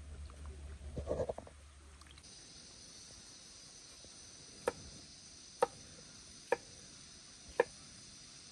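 Kitchen knife chopping a cucumber against a wooden cutting board: four sharp chops about a second apart, over a steady high chirring of insects. About a second in there is a brief wet squish of chicken pieces being worked by hand in buttermilk marinade.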